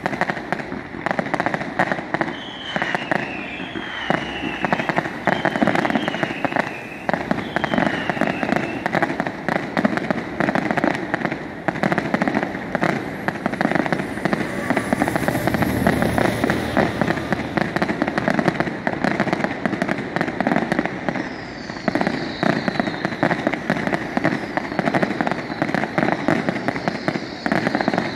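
Fireworks display: a dense, continuous run of shell bursts and crackling. Several falling whistles sound a few seconds in, and more come near the end.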